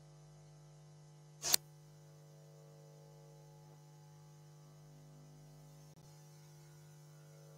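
Faint steady electrical hum, broken about one and a half seconds in by a single short, loud crackle.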